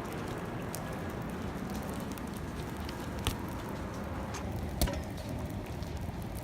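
Steady rustling noise with scattered faint crackles and two sharper clicks, about three and five seconds in.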